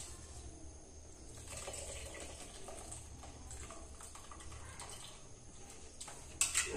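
Rice boiling in a metal pot, stirred and lifted with a slotted metal skimmer: soft sloshing of water and small scrapes and taps, with one sharp clink of the skimmer against the pot near the end.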